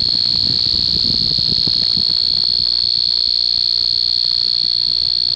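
The add-on piezo beeper of a modified K-II EMF meter sounds one continuous high-pitched tone. It is set off by the strong electromagnetic field close to a running electric fan, with the meter's lights pegged at the top.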